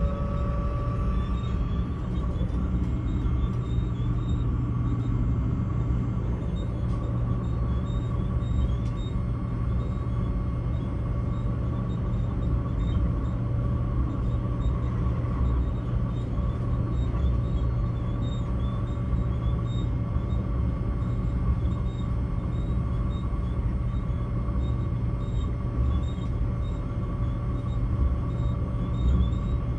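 Electric regional train running steadily at speed, heard from inside the carriage: a constant low rumble of wheels on the track with a steady whine from the drive.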